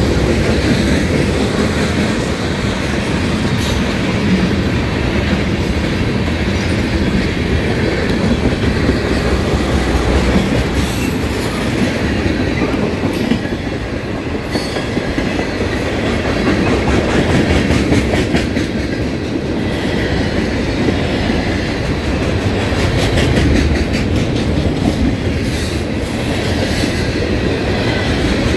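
Freight train's cars rolling past close by: a steady rumble of steel wheels on rail, with clicks and clacks as the wheels cross rail joints.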